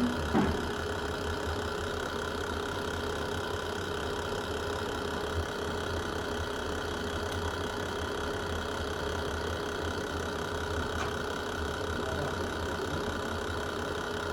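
Wood fire burning in a fireplace: a steady low rumble and hiss of the flames, with a couple of sharp pops near the start and about five seconds in.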